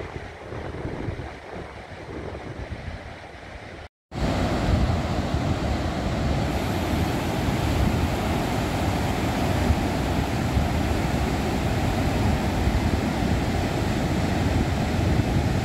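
Storm-swell surf breaking and washing up a sandy beach, with wind buffeting the microphone. A cut about four seconds in briefly silences it, after which the surf and wind rumble are louder.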